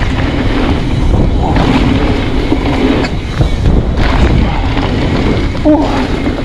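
Trek Fuel EX 9.8 Gen 6 mountain bike ridden along a dirt trail: a steady, loud rumble and rattle of tyres and frame over rough ground.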